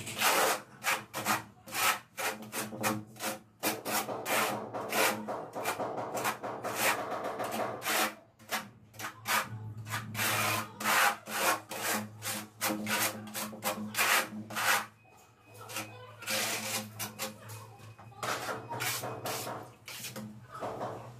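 Steel notched trowel scraping tile adhesive across the back of a large ceramic tile in quick repeated strokes, spreading it flat and then combing it into ridges. A short lull comes about fifteen seconds in.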